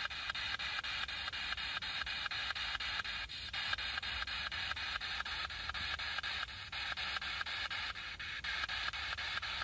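Handheld spirit box (ITC Research Device) scanning through radio stations, its speaker giving out choppy radio static that is cut into short pieces several times a second as it sweeps.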